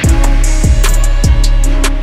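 Background music: a steady drum beat with a kick drum about twice a second comes in at the start, over sustained instrument tones.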